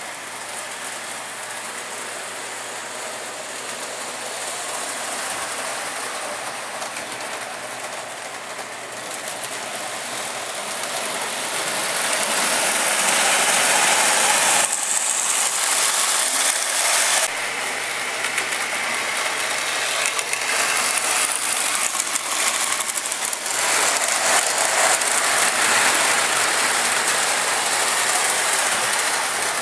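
Three-rail O-gauge model train running on metal track, its motor and gears whirring and its wheels rattling on the rails. The sound swells as the train passes close, about halfway through and again near the end.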